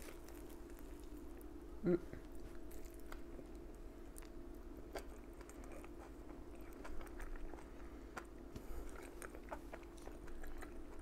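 Close-miked chewing of a bite of deep-fried egg roll: faint crunches and mouth clicks, with one louder mouth sound about two seconds in. A faint steady hum runs underneath.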